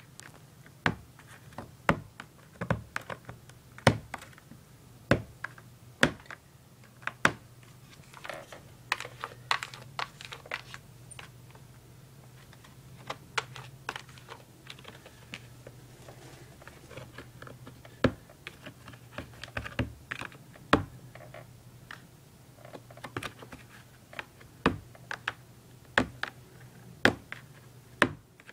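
Irregular sharp clicks and taps on a hard plastic laundry basket, some spaced about a second apart and some in quick clusters.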